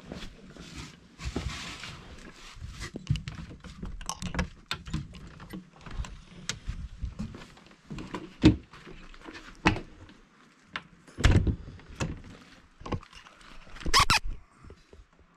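Handling noise from a carried camera: a string of knocks, thunks and rustles with footsteps on gravel, and louder clunks about eleven and fourteen seconds in.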